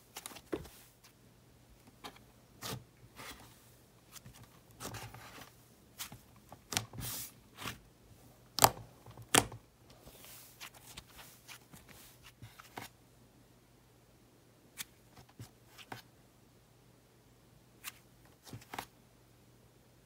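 Pink cloud slime being stretched, squeezed and pulled apart by hand: soft, irregular crackles, pops and tearing sounds as the fluffy slime breaks. They come thick in the first part and turn sparse, just a few isolated pops, over the last several seconds.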